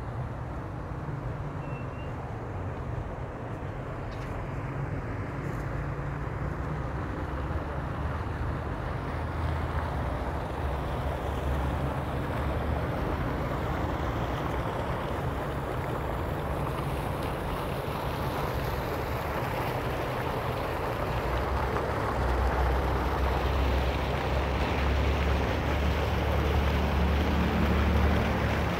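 Fountain jets splashing into their stone basins, a steady watery hiss that grows louder near the end, over a low rumble of city traffic.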